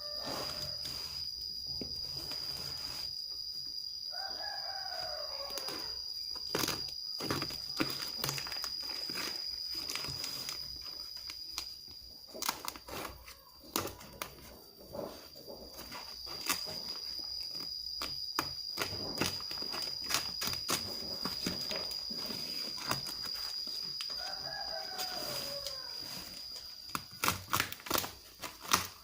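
A rooster crows twice, about four seconds in and again near the end, over a steady high-pitched whine. Scattered sharp clicks and knocks come from a cardboard box being handled and opened, growing busier near the end.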